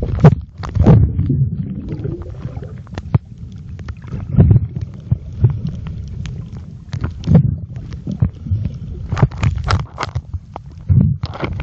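Muffled underwater sound picked up by a mobile phone filming below the surface: a low churning rumble of moving water that swells every few seconds, with many irregular sharp clicks and knocks. There is a brief gurgle about a second in.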